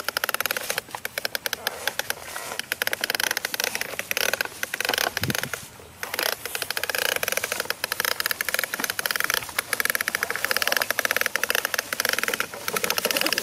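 Plastic toy dump truck pulled over dry rice stubble: a dense, rapid clatter and crackle of its wheels and the straw, with a brief pause about five seconds in.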